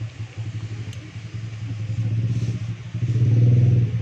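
A small engine idling with a quick, even pulsing hum, noticeably louder for the last second.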